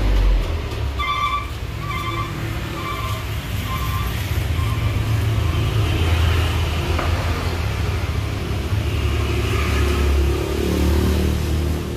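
Road traffic: motor vehicle engines rumbling steadily. A run of about six short, evenly spaced beeps sounds in the first few seconds.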